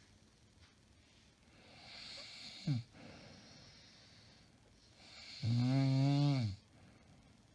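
A woman snoring in her sleep: a breathy inhale with a short snort about two and a half seconds in, then a loud, low, droning snore lasting about a second near the end.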